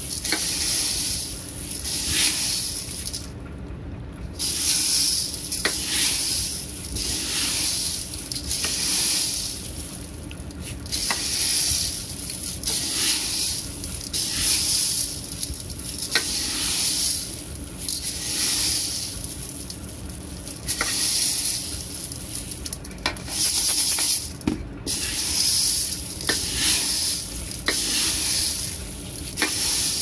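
A hand stirring a mix of beans, lentils and raisins in an aluminium pot, the grains rustling and hissing in repeated strokes, roughly one a second, with an occasional click of grains against the pot.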